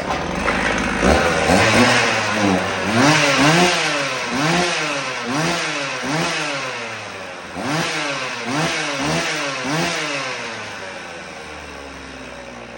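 Vintage Husqvarna 50 two-stroke chainsaw running and being blipped on the throttle over and over, about two revs a second, then dropping back to a steady idle near the end.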